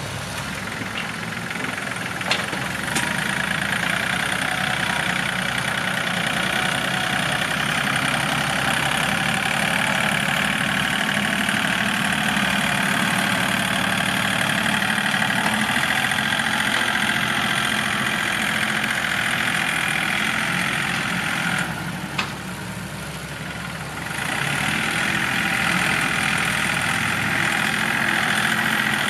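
Yanmar EF393T 39-horsepower tractor's diesel engine running steadily as the tractor pushes and levels soil with its front blade. The sound drops briefly about 22 seconds in, with a single click, then picks back up about two seconds later.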